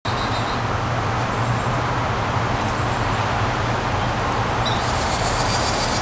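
Steady outdoor background hum and hiss, with faint high bird chirps briefly at the start and again in the last second or so.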